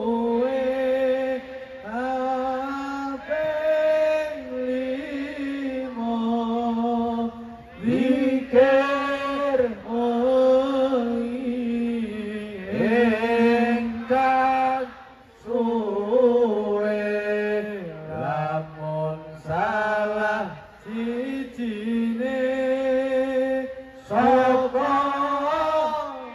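A solo male voice chanting an Islamic devotional melody into a microphone, amplified through a PA, in long wavering melismatic phrases with brief breaks between them.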